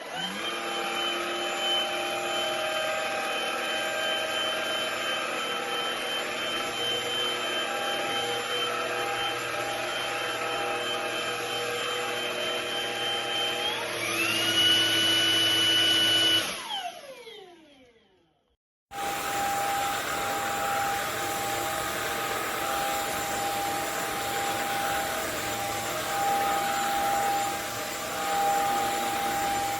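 MONSGA MV3 cordless stick vacuum's motor whining up as it is switched on, then running steadily. About 14 seconds in it steps up to a higher, louder pitch, as a higher power setting would, then spins down to a stop a few seconds later. After a short silence it is running steadily again.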